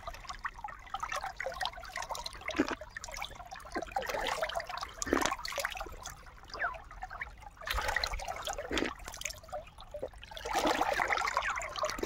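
Water trickling and splashing unevenly from an old borewell pipe in the ground that flows naturally without any pump, as a hand reaches into the flow to scoop it up.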